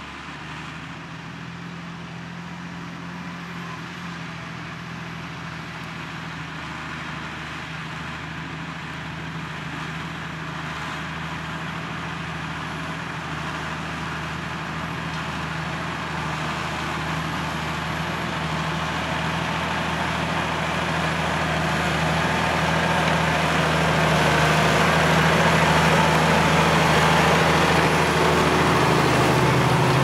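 Diesel engine of a Valtra tractor working steadily under load as it pulls a mounted reversible plough. It is a constant drone that grows gradually louder as the tractor comes closer.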